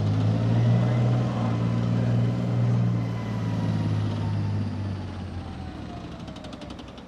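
Bergepanzer 3 Büffel armoured recovery vehicle's V12 diesel running as the tracked vehicle drives off, loudest in the first few seconds and fading as it moves away, with a high whine that slides down in pitch.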